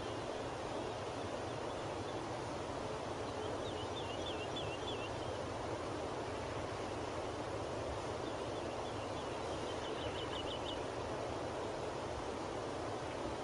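Steady outdoor ambience with an even hiss, and a small bird twittering in two short runs of quick high notes, about four seconds in and again near ten seconds.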